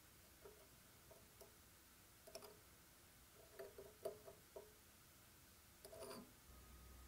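Near silence, with a few faint light taps and clicks: a steel twist drill bit being set and turned against the wheel of a bench grinder that is not running. The taps come in small clusters about two seconds in, around four seconds, and about six seconds in. A faint steady hum starts shortly before the end.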